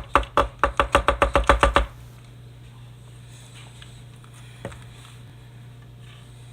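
A rapid run of sharp taps, about seven a second, as a firework mortar shell is knocked against a hard surface to shake the firework stars loose. The taps stop about two seconds in, leaving a steady low hum.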